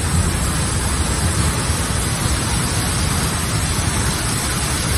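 Rushing water of a log flume ride: a steady, loud hiss with no breaks.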